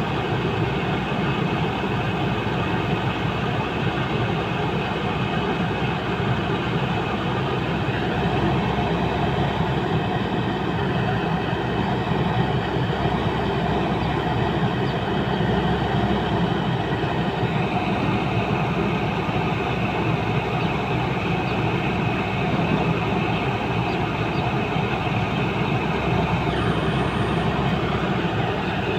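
Diesel engine of a Sunward rotary drilling rig running steadily, its tone shifting slightly about two-thirds of the way in.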